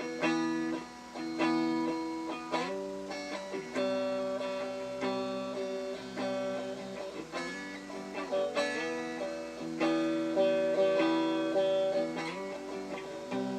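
Guitar playing a slow chord progression: chords struck and left to ring, changing about every second, with a few chord changes made by sliding up into the new pitch.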